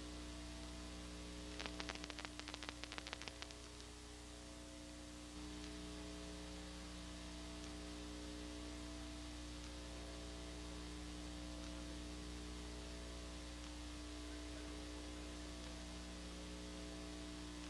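Steady electrical mains hum with a low hiss, broken about two seconds in by a quick run of sharp clicks lasting about two seconds.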